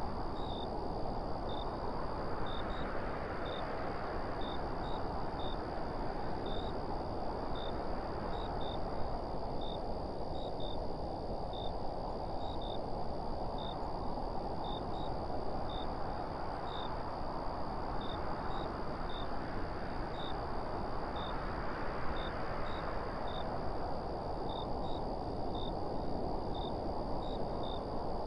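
Wind blowing steadily, swelling in slow gusts every several seconds. Faint short high-pitched chirps repeat irregularly, about one or two a second.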